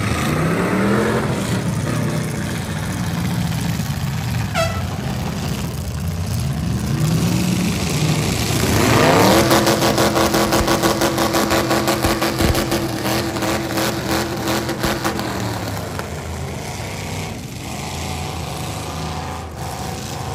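Demolition derby cars' V8 engines revving: one climbs about a second in, and another rises from about seven seconds, is held at high revs for about six seconds, then drops back.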